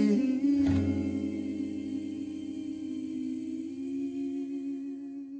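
The end of a song: a long hummed note held over a chord that slowly fades, then stops right at the end.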